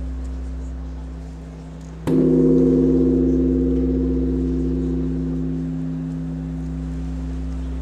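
A gong struck once about two seconds in, ringing out and slowly fading over a steady low hum of held tones.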